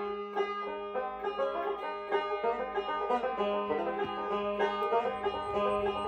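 Background banjo music, a quick run of plucked notes over a held low tone.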